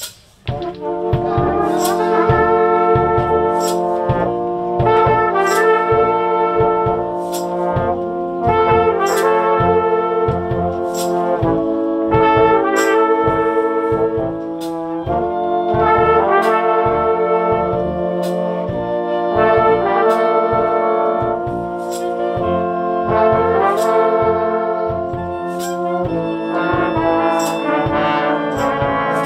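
Fanfare band's training orchestra playing a tune live: brass horns sound held chords over a steady percussion beat, starting about half a second in.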